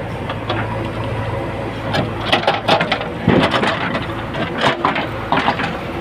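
JCB 3DX backhoe loader's diesel engine running steadily under load while its bucket tears out a tree stump, with irregular cracks and crunches of roots and soil breaking, most of them in the second half.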